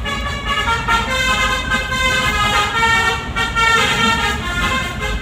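Bus telolet horn playing a tune of quickly changing tones, over the low rumble of the bus engine.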